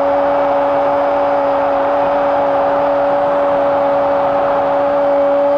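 Football commentator's long goal shout, a held "gooool" sustained on one steady pitch, over a loud stadium crowd.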